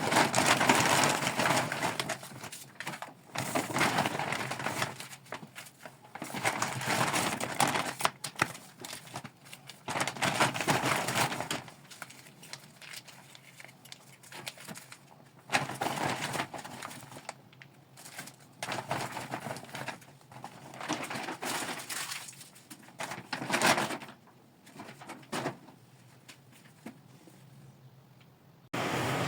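Packaging, such as plastic bags and wrappers, rustling and crinkling in irregular handfuls as purchases are unpacked by hand, with quiet pauses between.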